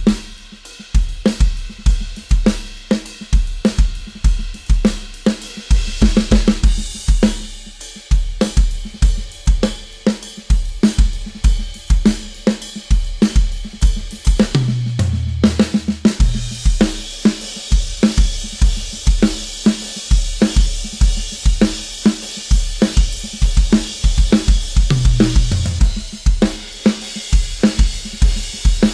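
Drum kit played in a steady groove of kick drum, snare and hi-hat, with a falling tom fill about halfway through and another near the end. After the first fill the cymbals ring more and wash over the beat.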